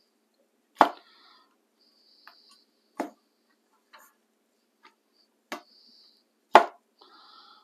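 Cleaver chopping rehydrated wood ear mushrooms on a wooden cutting board: four sharp knocks on the board, the loudest near the end, with a few lighter taps between them.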